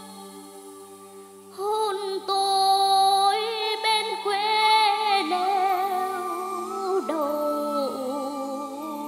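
A child singing a slow ballad with wavering vibrato over held backing chords. The voice comes in about one and a half seconds in, after a moment of accompaniment alone.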